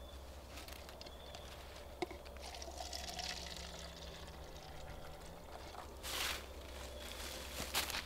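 Liquid pouring from an insulated carafe into a plastic cup for about three seconds, starting about two and a half seconds in. Two short rustles follow near the end.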